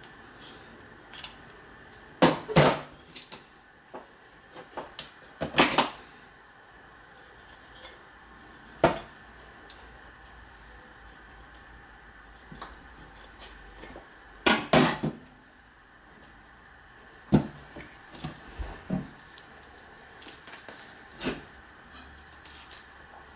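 Steel knife clattering and scraping against a stainless-steel sink draining board while a rabbit is skinned: irregular sharp metallic knocks, loudest about two seconds in, near six seconds and around fifteen seconds.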